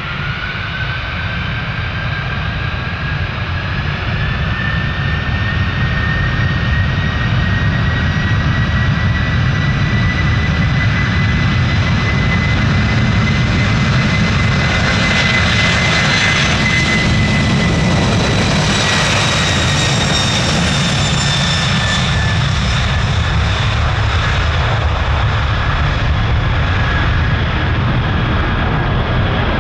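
Boeing 747 jet engines running, a deep rumble under a steady high-pitched fan whine. It grows louder over the first several seconds and is fullest around halfway through, after which the whine drops slightly in pitch.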